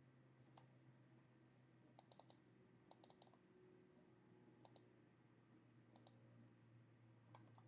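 Faint computer mouse clicks in quick little runs of two to four, repeated every second or so, over a steady low hum.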